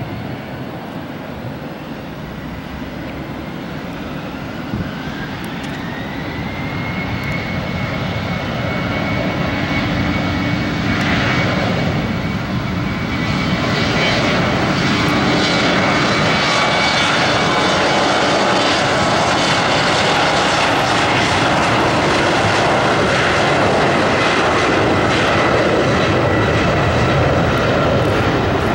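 Twin turbofan engines of an Embraer E-Jet spooling up to takeoff thrust: a whine rises in pitch over a few seconds and then holds. The engine noise grows louder through the first half and stays loud as the jet accelerates down the runway.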